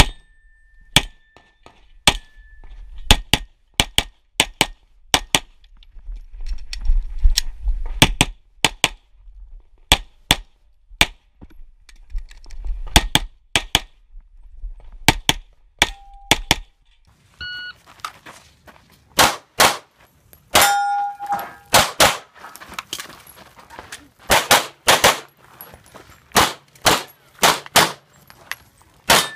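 Handgun shots fired in quick pairs and short strings, with the brief ringing of steel targets being hit.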